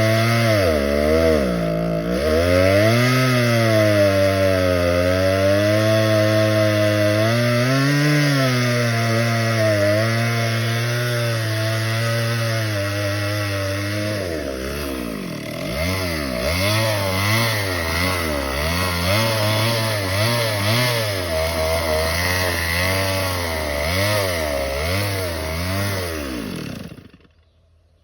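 Two-stroke chainsaw running, its engine speed rising and falling; from about halfway the pitch surges up and down roughly once a second, and near the end the engine cuts out suddenly. The owner puts the rough running down to a saw needing a new spark plug and a cleaned, adjusted carburetor.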